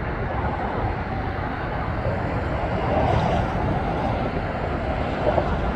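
Steady low rumble of an approaching diesel freight train's locomotives, heard from a distance.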